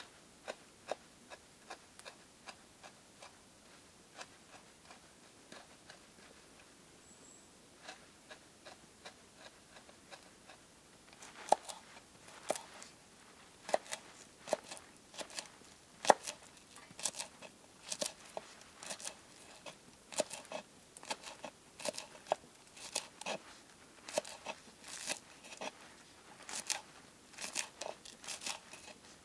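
Irregular crisp crunching and cutting sounds of food being prepared by hand on a board: a few faint clicks at first, then a dense run of sharp crunches from about a third of the way in.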